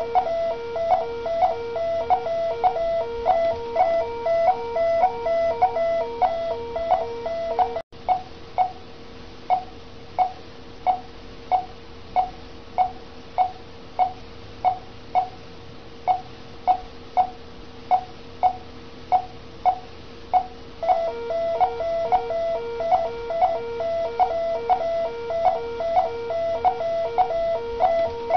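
Bedside patient monitor giving a regular pulse beep, about three short beeps every two seconds. A second repeating alarm tone sounds over it for the first eight seconds or so and again from about twenty-one seconds in. The sound drops out for an instant about eight seconds in.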